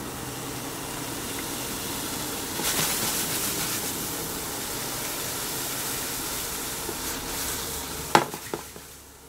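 Silkworm pupae sizzling steadily as they dry-roast in a stainless steel pan, a little louder about three seconds in. Near the end come two sharp knocks.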